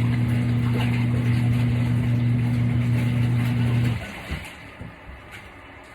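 Electric motor of a Kuppet portable twin tub washing machine running with a steady low hum during the wash cycle, then cutting off suddenly about four seconds in, leaving only small handling noises.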